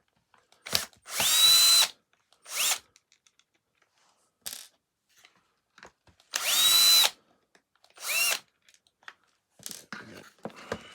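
Cordless electric screwdriver or drill-driver run in short bursts, its whine rising quickly to a steady pitch in two longer runs of under a second, with several brief blips between them, as it unscrews screws from a vacuum cleaner's plastic floor head.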